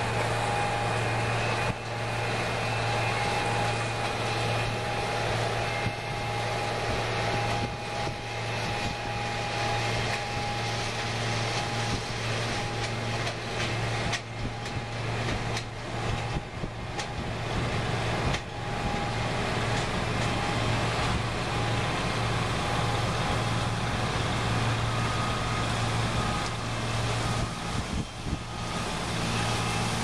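Engine of an Oxbo seed corn harvester running steadily, a low hum with a steady higher whine over it, while its hopper of picked seed corn ears is raised to dump.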